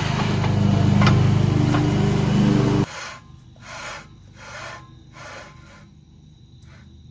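A power tool's motor runs steadily and cuts off sharply about three seconds in, followed by a few soft, evenly spaced rubbing strokes, like metal being scraped or wiped by hand.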